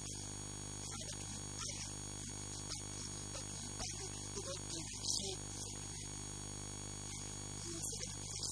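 Steady electrical mains hum with a buzz of many overtones in the microphone's audio chain, louder than the faint speech heard in short fragments through it.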